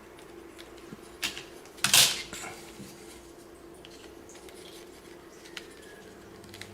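Hard plastic model-kit parts clicking and knocking together as pieces are handled and fitted on. A few sharp clicks, the loudest about two seconds in, then only faint ticks.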